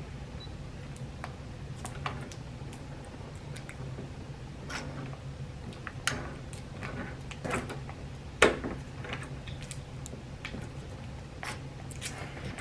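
Irregular clicks and knocks of deadbolt parts being handled and fitted into a door, the loudest knock about two-thirds of the way through, over a low steady hum.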